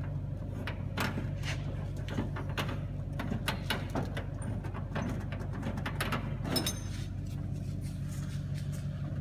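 Clicks, knocks and metal clunks from unlocking and opening the door of a vintage Pepsi vending machine, with one brighter metallic clank about two-thirds of the way through, over a steady low hum.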